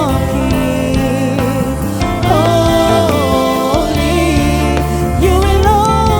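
Gospel worship song: a voice singing a melody over steady instrumental accompaniment.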